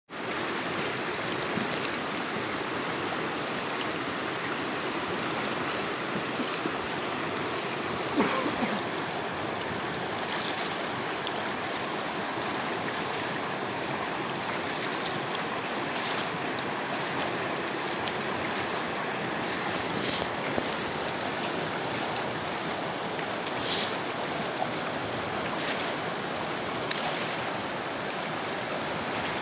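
Silty river rushing steadily past the bank, with a few brief louder noises along the way.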